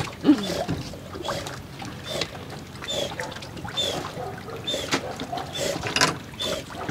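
Sea water sloshing and splashing against a yacht's stern, with a dog paddling close by. A short, high chirp repeats about once a second.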